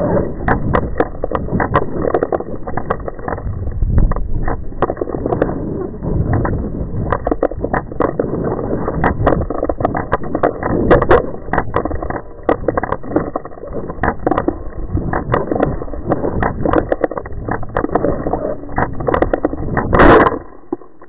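Wind rushing and buffeting on the microphone of an 808 keychain camera strapped to a falling Estes Farside model rocket, played at quarter speed and heavy with sharp clicks and rattles. The parachute has not fully deployed, and about twenty seconds in a loud thump marks the rocket hitting the grass.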